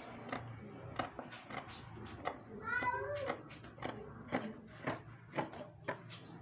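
Scissors snipping through knit fabric on a wooden table, a steady run of short snips about two to three a second. About three seconds in, a short high wavering cry.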